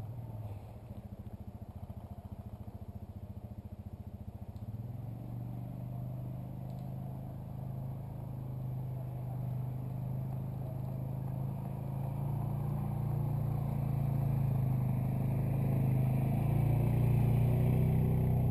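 A low, steady engine drone that grows gradually louder, with fast rhythmic pulsing in the first few seconds.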